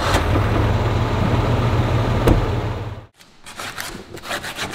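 Pickup truck engine running steadily just after starting, cutting off abruptly about three seconds in. Then a few short strokes of a hand scraper on an aluminum boat gunnel.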